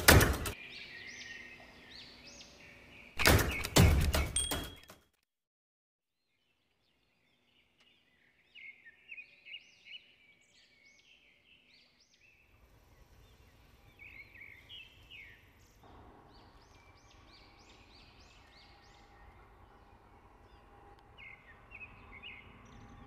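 Two loud bursts of rapid sharp crackling in the first five seconds, then a cut to silence. After that, small songbirds chirping with short, scattered calls over faint outdoor hiss.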